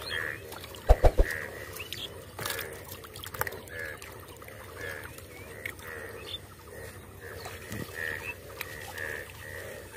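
Frogs calling over and over in the background, a short croak about every second, while hands splash and scrabble in shallow muddy water, with a couple of dull thumps about a second in.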